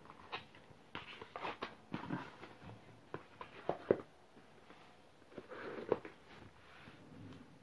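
Hands handling stiff cardboard album boxes: irregular taps, knocks and rustling as the boxes are touched, moved and set down.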